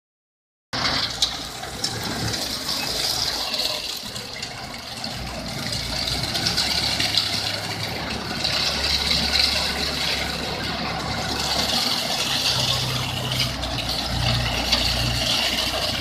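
Self-loading concrete mixer truck running, its engine holding a steady low note while the rotating drum discharges concrete out of its mouth in a continuous rushing, gravelly pour.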